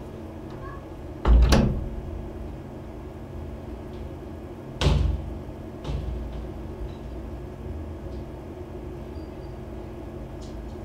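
Two loud, dull thumps about three and a half seconds apart, the second followed a second later by a fainter knock, over a steady low room hum.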